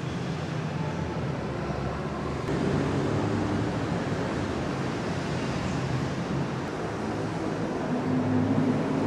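Steady low rumble with a few low hums that change pitch now and then, swelling slightly about two and a half seconds in and again near the end.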